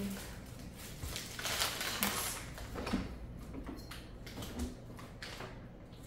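Quiet handling noises: plastic produce bags rustling and light knocks as groceries are carried to a refrigerator and its door is pulled open.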